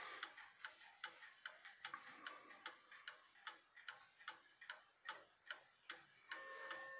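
Faint, even ticking of an 1896 William Gilbert black mantel clock's movement, about two and a half ticks a second. Near the end a steady ringing tone with several pitches comes in.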